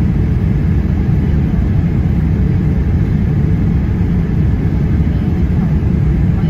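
Steady low rumble of engine and airflow noise inside the cabin of a Boeing 787-8 on its low approach, heard from a seat beside the wing and its GEnx engine.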